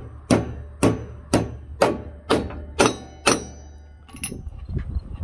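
Hammer blows on a steel key, driving it and the cut shims down into the worn keyway of a mower-deck spindle pulley hub to take up the play: seven sharp metallic strikes about two a second, then a few light clicks near the end.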